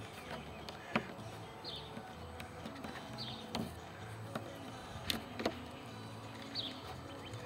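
Light clicks and crackles from hands peeling tape backing and pressing tape around a cable entry housing on a metal van roof, over faint background music, with three short bird chirps.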